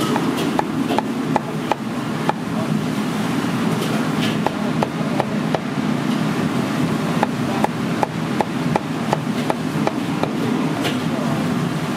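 Runs of sharp, rhythmic knocks from a kitchen utensil striking, about three a second with short pauses between runs, over the steady roar of commercial kitchen equipment.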